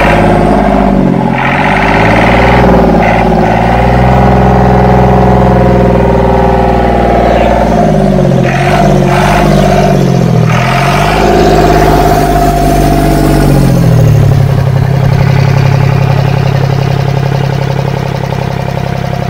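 Escorts Ford tractor's old direct-injection diesel engine running, its speed dipping and rising several times. About two-thirds of the way through it drops to a steady idle.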